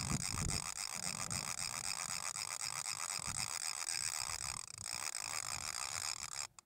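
Wind buffeting the microphone: an irregular low rumble under a steady hiss, which cuts off abruptly near the end.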